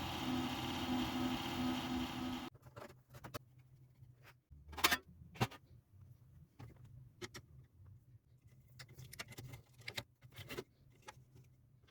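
Computer power supply running noisily, a steady whirring hum with a pulsing low tone, which cuts off abruptly about two and a half seconds in; this is the noise the faulty supply makes when the PC is switched on. Scattered clicks and knocks of handling follow, the sharpest about five seconds in.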